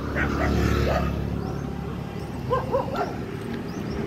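Dog giving short yelps in quick groups of two or three, once near the start and again about two and a half seconds in.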